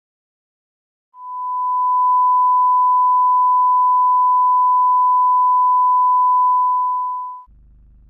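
Steady single-pitch television test tone sounding with the colour bars. It swells in about a second in, holds level and fades out near the end; a low hum comes in as it stops.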